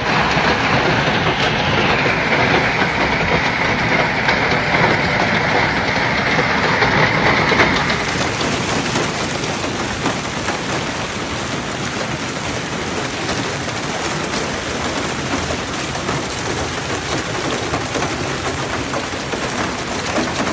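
Hail pelting down: a loud, dense, steady clatter of hailstones striking hard surfaces. The sound changes character about eight seconds in.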